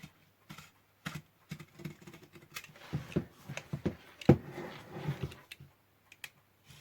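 Blade scraping and picking along the edge of a stuck part inside a radio, working muck out of the gap: irregular small clicks and scrapes, busiest in the middle, with one sharp click a little past four seconds in.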